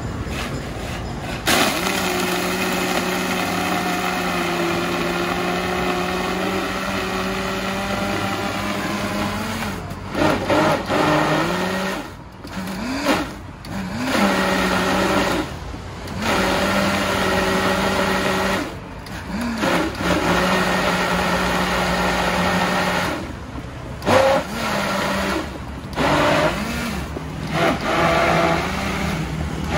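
High-power countertop blender blending a coconut milk smoothie, its motor running steadily for the first ten seconds or so. After that it is stopped and restarted several times, each restart a rising whine as the motor spins back up.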